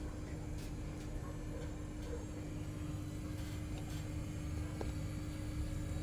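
Samsung ecobubble 8 kg front-loading washing machine running its wash cycle: a steady low rumble with a constant hum from the machine.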